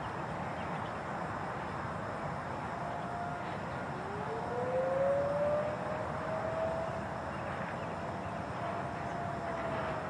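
Distant Federal Signal 2001 rotating outdoor warning sirens sounding the Attack signal, faint over steady background noise. The tones come in a few seconds in, one sliding up in pitch as it winds up while others hold a steady wail.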